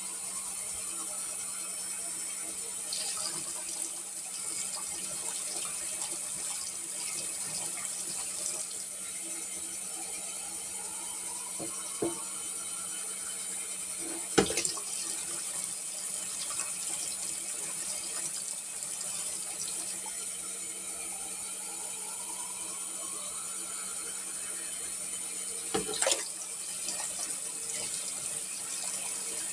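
Countertop dishwasher running on a test: a steady rush of water spraying inside over a low steady hum. Two slow rising tones come and go, and a few sharp knocks are heard, the loudest about halfway through.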